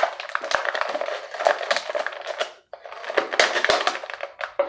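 Plastic toy packaging being handled and pulled open, with dense crinkling and crackling full of sharp clicks. It breaks off briefly a little past halfway.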